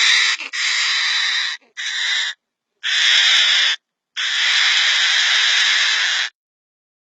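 Cockatoo screeching: a series of harsh, raspy screeches with short gaps between them, the last one about two seconds long.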